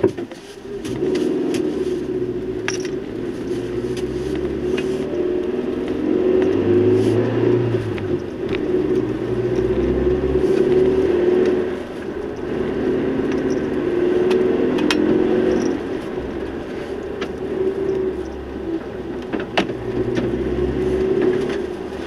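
Vehicle engine running as it drives along a forest road, its pitch rising and falling with the throttle, with scattered sharp clicks and rattles.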